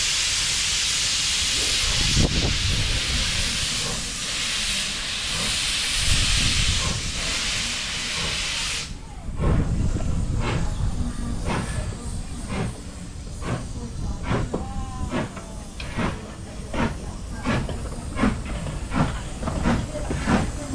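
Detroit and Lima Northern No. 7, an 1897 Baldwin 4-4-0 steam locomotive, working: a loud steady hiss of steam with slow deep beats under it. About nine seconds in the hiss stops and the exhaust chuffs come through sharply, about one and a half a second.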